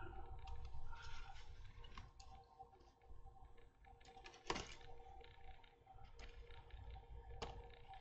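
Faint light clicks and taps of a small lightweight model aircraft being handled and test-fitted in the hands, with two sharper clicks, one midway and one near the end. A faint steady hum runs underneath.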